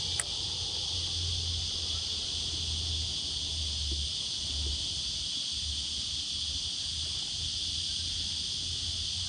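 Steady high-pitched insect buzz, like cicadas or crickets in bushland, over an uneven low rumble, with one sharp click just after the start.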